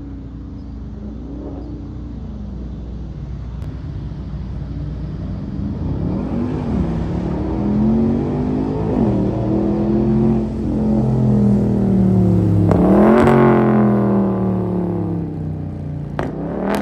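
Dodge Charger Scat Pack's 6.4-litre 392 HEMI V8 with a muffler delete, driving and accelerating. The exhaust note rises and falls several times over a steady low rumble, and is loudest about 13 seconds in, where it climbs sharply and then drops.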